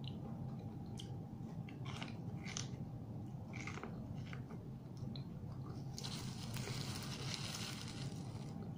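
Biting and chewing grilled corn on the cob, with several short crisp crunches of kernels being bitten off. About six seconds in comes a couple of seconds of rustling.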